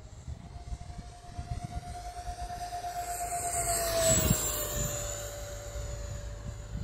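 Large radio-controlled Harrier AV-8B model's turbine whining as it flies past. The whine swells to its loudest about four seconds in, drops in pitch as it passes, then fades.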